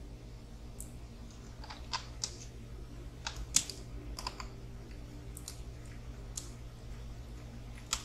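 Scattered light clicks and taps, about a dozen at irregular intervals, from small plastic parts of an RC crawler's receiver box being handled and fitted, over a steady low hum.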